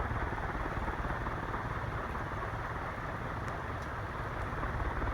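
Industrial ceiling fan with a Palco motor and 56-inch Compton Greaves metal blades running steadily on high speed: a steady rush of air driven by the blades, with wind on the microphone.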